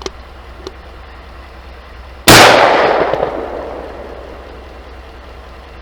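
A single shotgun shot fired at a grouse: one sharp, very loud blast a little over two seconds in, followed by about two seconds of fading echo. A few faint clicks come before it.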